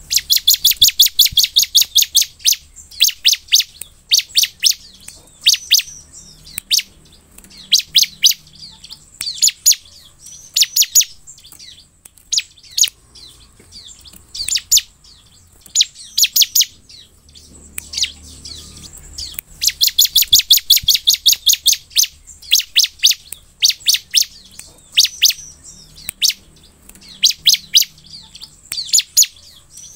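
Bar-winged prinia (ciblek) singing: phrases of rapid, high-pitched chirps repeated over and over, with long runs of about ten notes a second at the start and again about two-thirds of the way through, and shorter bursts between.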